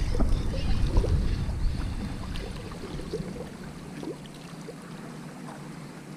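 Wind rumbling on the microphone for the first two seconds or so, then fading, leaving small waves lapping and trickling among the breakwater rocks with faint scattered ticks.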